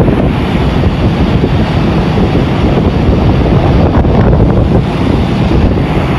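Heavy wind buffeting the microphone on a moving car ferry, a loud, steady low rumble with no break.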